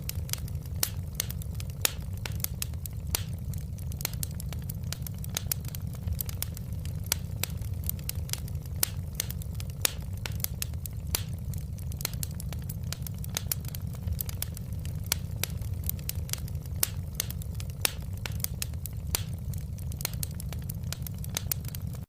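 Wood fire crackling in a fireplace: many sharp, irregular pops and snaps over a steady low rumble of burning.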